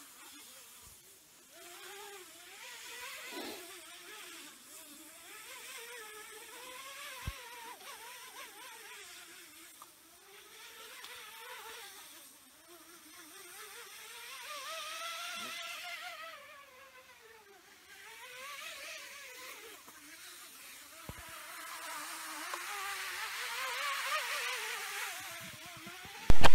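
Climbing rope paying out fast over the edge of a mine shaft, making a whirring whine whose pitch and loudness rise and fall in slow waves as the rope speeds up and slows.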